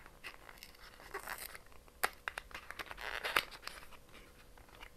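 Small cardboard advent calendar box being pulled and torn open by hand: soft crinkling and tearing of card with scattered sharp clicks, busiest about three seconds in.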